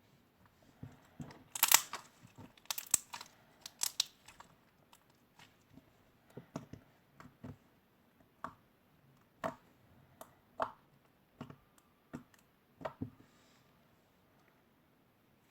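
Slime being pressed, stretched and poked by hand, giving a series of irregular sharp clicks and pops. They are loudest about two seconds in and stop a couple of seconds before the end.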